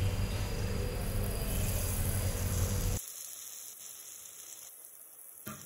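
Besan-battered potato-and-bread balls frying in hot oil in a steel kadhai: a steady sizzle over a low hum, which drops abruptly about three seconds in to a much fainter hiss.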